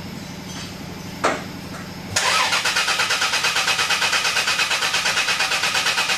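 Dodge Caravan's starter cranking the engine in a fast, even rhythm. It begins suddenly about two seconds in and the engine does not catch: a no-start from a fuel pump so worn that it flows fuel but cannot build pressure.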